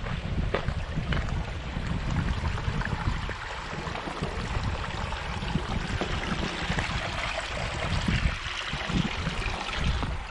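A small mountain stream running over rocks, its rush swelling in the middle as it is stepped across, with wind buffeting the microphone and a few footsteps on stone and gravel.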